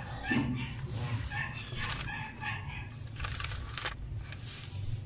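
Brown kraft pattern paper rustling and crinkling as it is handled and lifted, in a few short bursts, the sharpest near the end. Animal calls sound in the background.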